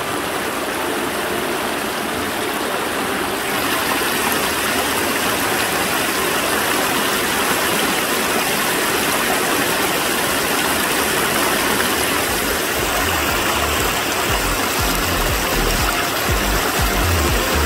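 Shallow river water rushing steadily over rocks in a riffle, a strong current. An irregular low rumble joins near the end.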